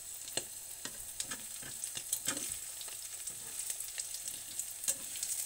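Sardine-and-egg omelette frying in oil in a pan with a steady sizzle, while a metal spatula and fork scrape and click irregularly against the pan as the set omelette is loosened for flipping.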